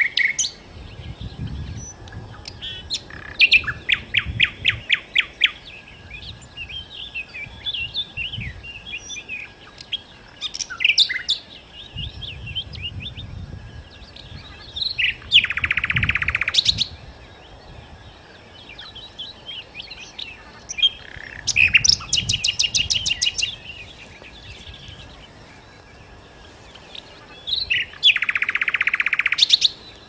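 A songbird, the bird Indonesian bird-keepers call sikatan londo, singing in phrases of rapid repeated high notes. Dense, fast trills come about fifteen seconds in and again near the end, with softer chirps between them.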